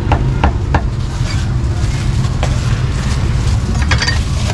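Cleaver chopping meat on a round wooden chopping block: three quick chops in the first second, then only a few scattered knocks, over a steady low rumble.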